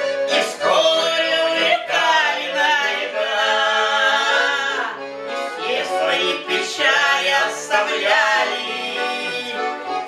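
A man and a woman singing a Russian folk-style song as a duet, accompanied by a garmon (Russian button accordion) that the man plays.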